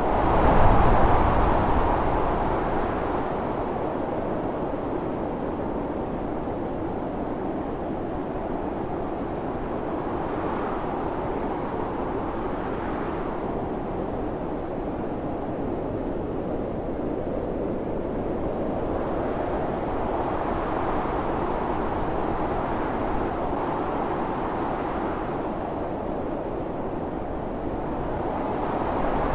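Strong blizzard wind blowing as a steady rush, with a loud gust about a second in and slower swells rising and falling after it.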